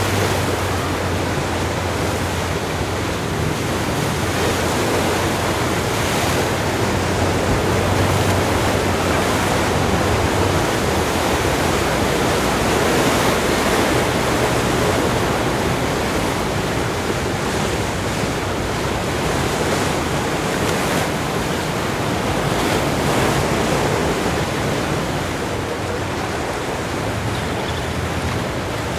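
Steady wash of ocean surf breaking on a sandy beach, swelling and easing, mixed with wind.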